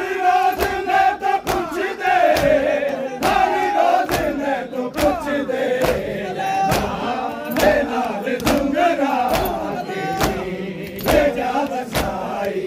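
Crowd of men chanting in unison while beating their chests in Shia matam. Sharp open-hand slaps land about twice a second under the loud chant.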